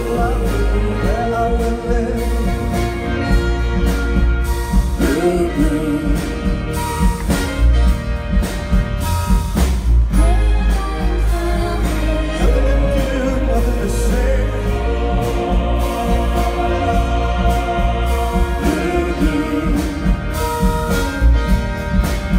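Live pop song performed by a symphony orchestra with strings and a band, over a steady deep bass, with singers' vocal lines on top.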